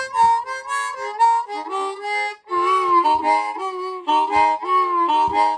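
Easttop ten-hole diatonic harmonica in the key of Ab, played with cupped hands: a quick blues run of notes, often two or more sounding together, with a short break about two and a half seconds in. The player feels a couple of its reeds could use retuning.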